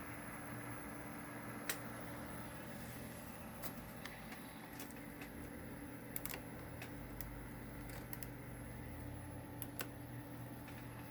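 Western Digital Black hard drives seeking while reading files: irregular sharp ticks and clicks, a few seconds apart, over the steady hum of the running computer. The owner is unsure whether this noise is normal.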